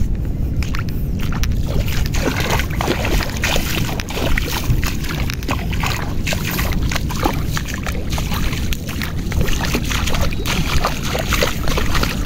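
Feet wading through shallow seawater: a quick, uneven run of splashes and sloshes, over a low rumble of wind on the microphone.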